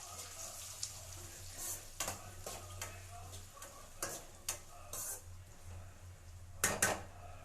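Chopped onions sizzling as they fry in hot oil in a pan, with a utensil scraping and clinking against the pan as they are stirred; two louder clinks come close together near the end.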